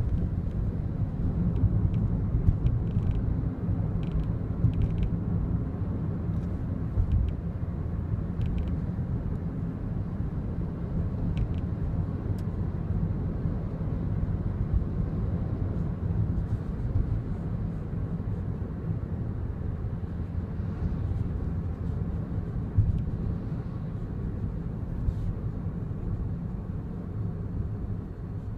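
Inside a moving Daihatsu Wake, a steady road and engine rumble with faint, irregular little clicks and rattles, more of them in the first half. The rattle comes from around the driver's seat belt, an abnormal noise that appeared a month after delivery.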